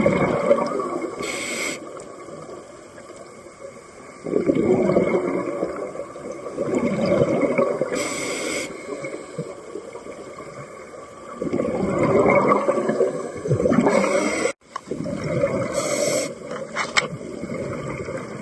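Scuba diver breathing through a regulator underwater: short hissing inhalations alternate with longer bubbling exhalations, over several breaths.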